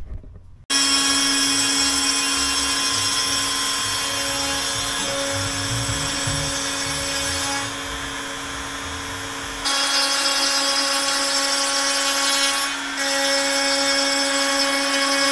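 Makita trim router on a CNC gantry spinning at speed with a steady high whine, starting abruptly under a second in. It dips in level for a couple of seconds a little past the middle, then comes back up, while the machine surfaces the MDF wasteboard.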